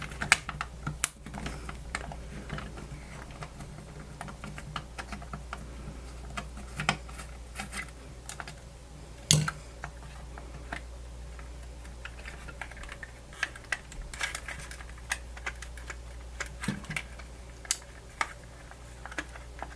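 Irregular light clicks and taps of the Grundig FR-200 radio's plastic housing and parts being handled and worked apart during disassembly, one louder knock about nine seconds in, over a steady low hum.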